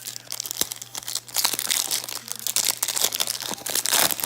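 Crinkling and tearing of a foil baseball-card pack wrapper being torn open and crumpled by hand, a dense crackle with many small snaps, busiest in the second half.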